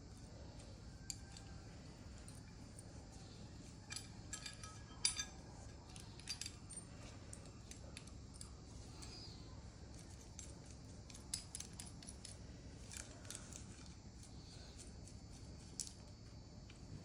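Scattered light metallic clicks and clinks of hand tools and metal parts being handled, with the loudest cluster about four to five seconds in, over a faint steady low hum.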